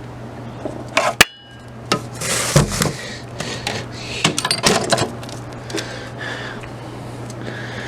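Objects being handled at close range: a sharp click about a second in, then a scraping rustle and a run of knocks and light clinks, over a steady low hum.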